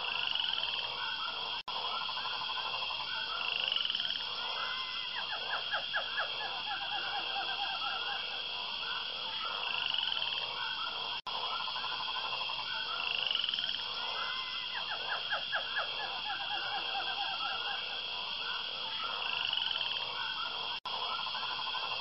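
Night chorus of frogs croaking in rapid pulsing trains that recur every few seconds, over a steady high trill. The chorus drops out for an instant three times, about ten seconds apart.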